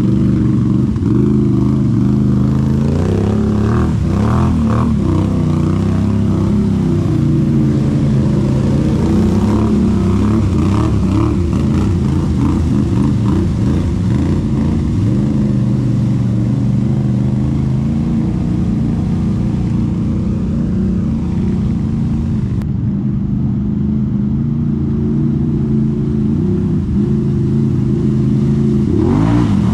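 Vehicle engine running steadily throughout, a loud continuous drone whose pitch shifts only slightly.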